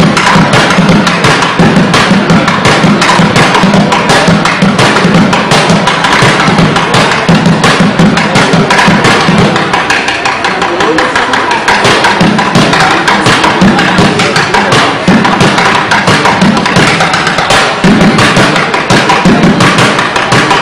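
Drumsticks playing fast, continuous rhythms on upturned plastic buckets: deep thuds from the bucket bottoms mixed with rapid sharp clicks.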